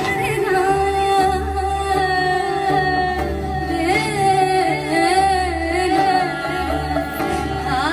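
A woman singing live with a band, her melody wavering and ornamented, over sustained chords and low bass notes.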